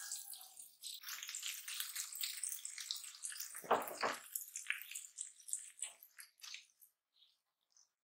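Scrambled eggs sizzling and crackling in hot oil in a nonstick frying pan while being stirred with a silicone spatula, with one louder scrape about halfway. The sizzle thins to scattered pops near the end.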